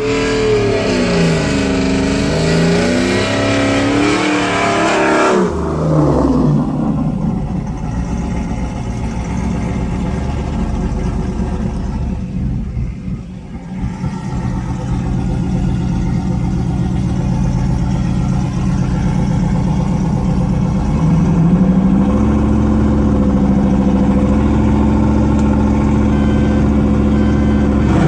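V8 engine pulling hard for about five seconds, its pitch climbing and dropping back at each gear change. It then falls to a steady lower run. About 21 seconds in it rises again and holds a higher steady pitch.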